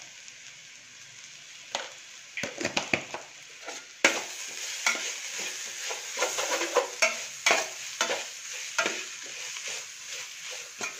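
Sliced onions and green chillies sizzling in coconut oil in a stainless steel pan, being sautéed until soft with salt just added. A metal slotted spoon scrapes and stirs through them, starting about two seconds in. The frying grows louder about four seconds in.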